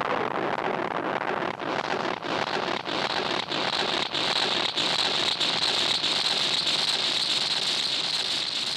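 Korg Monotron Delay analog synthesizer making a dense electronic hiss with a faint low tone underneath. From about three seconds in a bright, high-pitched band of hiss takes over. Short regular dropouts break it roughly every two-thirds of a second.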